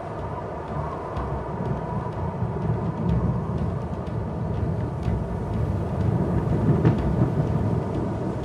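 Gusty storm wind with a deep, continuous rumble of thunder, growing a little louder in the second half.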